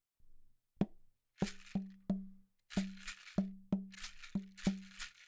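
Drum built from Lego bricks, struck in a quick rhythm about a dozen times, each hit giving a short, low, hollow tone, with a Lego-brick maraca shaken between the hits. The beat starts about a second in.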